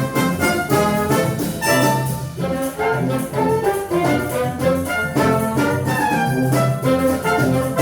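Wind band of brass instruments, with trombones and trumpets prominent, playing an instrumental arrangement: a moving melody over held low bass notes.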